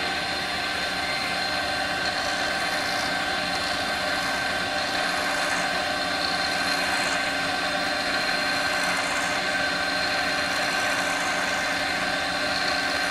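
Metal lathe running steadily under power, a constant whine made of several held pitches over a mechanical hum.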